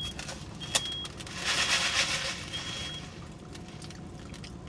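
A car parking alongside: a high electronic chime beeps three times, about a second apart and then after a longer gap, with a sharp click and a brief rush of noise in between.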